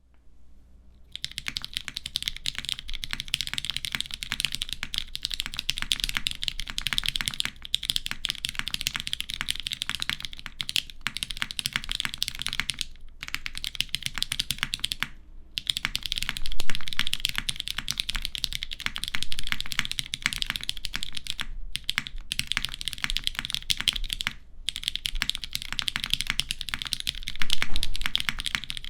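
Fast, continuous typing on a custom mechanical keyboard: lubed vintage Cherry MX Brown tactile switches on a polycarbonate half plate, with GMK doubleshot ABS keycaps, sandwich mount. It makes a dense run of keystroke clicks starting about a second in, with a few brief pauses and two louder stretches, one about halfway and one near the end.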